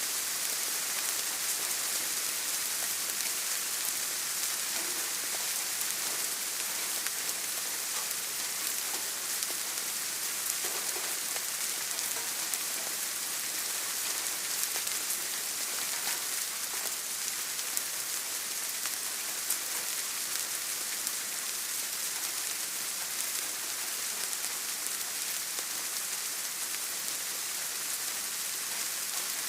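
Steady rain falling and pattering on a surface, a dense even hiss with fine drop ticks.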